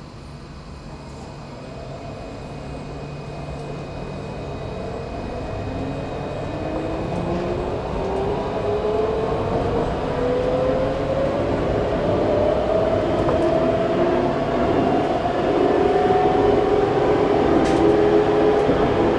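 Alstom Citadis 302 tram heard from inside the saloon as it pulls away and speeds up. About six seconds in, its traction motors start a whine that climbs steadily in pitch, and the rolling rumble grows steadily louder.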